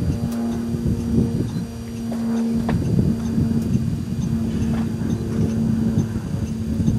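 Idling engine of a stopped tour bus giving a steady low hum, with irregular low rumbling over it.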